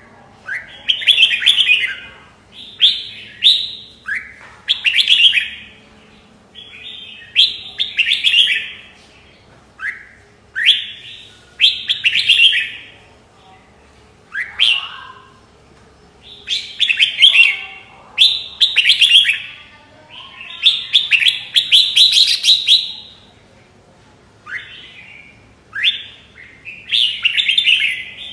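Red-whiskered bulbul singing: short, loud, rising, warbling phrases repeated every second or two, with brief pauses between them.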